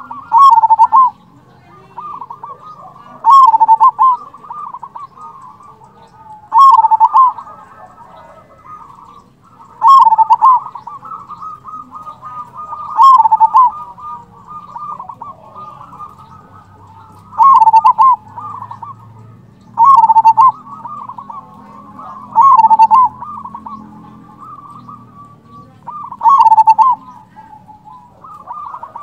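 Zebra dove (perkutut) singing: nine loud cooing phrases, about one every three seconds, with softer cooing between them.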